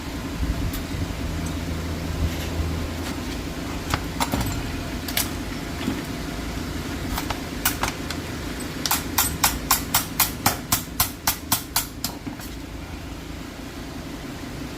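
Tool work on a car's brakes: a few scattered sharp clicks, then a run of about a dozen sharp clicks or taps, about four a second, over a steady low hum.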